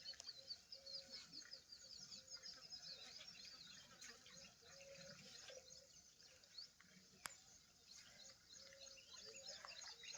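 Faint chorus of night animal calls: many quick high falling chirps all through, with short low steady notes recurring every second or so. A single sharp click about seven seconds in.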